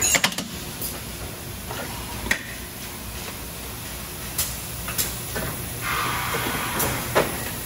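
Thermoforming machine running: a steady mechanical hum, with sharp clacks scattered through it and a short hiss of air about six seconds in.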